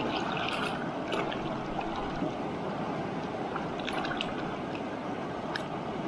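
Steady rush of river water, with a few short light clicks scattered through.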